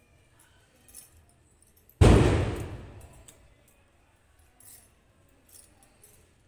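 A sudden loud metallic clang about two seconds in, ringing out and fading over about a second and a half, from a steel kitchen utensil knocked against the floor or another dish, with a few faint clinks around it.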